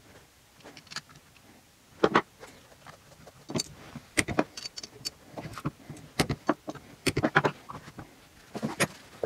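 An aluminium two-stroke engine crankcase and its steel pins are handled on a workbench: a run of irregular clicks, clinks and knocks as the case is worked on and turned over onto its side against wooden blocks. The loudest knock is about two seconds in.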